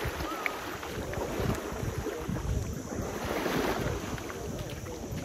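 Wind buffeting the microphone in gusts, over water sloshing and splashing.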